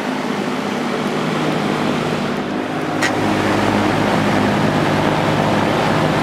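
Air King V20E box fan with a GE two-speed motor running on high speed: a steady rush of air over a low motor hum, not that loud. One short click about 3 s in.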